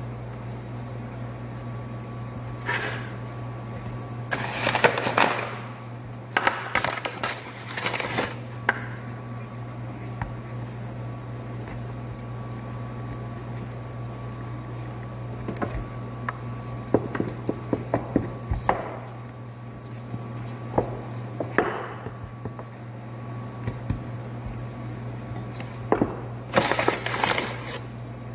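Hands working samosa dough on a floured countertop: a few bursts of rustling and a run of scattered light taps and knocks, with a rolling pin rolling the dough near the end. A steady low machine hum runs underneath.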